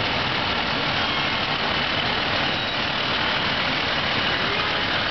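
Fire truck engine running steadily as the truck moves along at parade pace.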